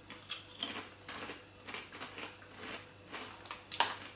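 Doritos tortilla chips being crunched and chewed: an irregular run of short, crisp crackles, several a second.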